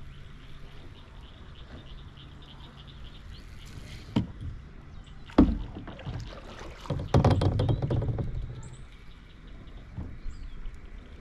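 Kayak paddle knocking against the kayak's hull and dipping in the water for a couple of strokes. There are two sharp knocks about four and five seconds in, the second the loudest, then a stretch of splashing and clatter between about seven and eight and a half seconds, and a lighter knock near the end.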